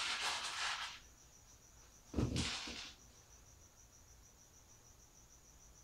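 Handling noise on a plywood workbench: a brief scraping rustle, then a single thump about two seconds in as the cordless drill and the plywood door panel are picked up and set down.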